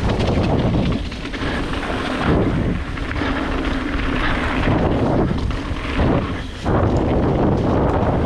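Wind buffeting a GoPro's microphone together with mountain bike tyre roar and rattle on a rough trail. It is a loud, steady rush of noise that surges and dips every second or two.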